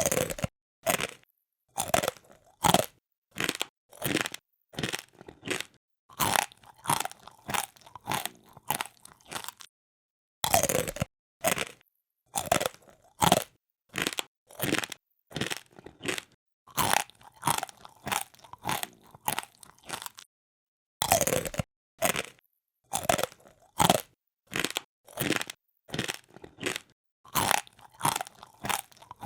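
Close-up crunchy chewing: a person munching something hard and crisp, the 'pori-pori' crunch of eating. Even crunches at about two a second, with a short break about ten seconds in and another about twenty-one seconds in.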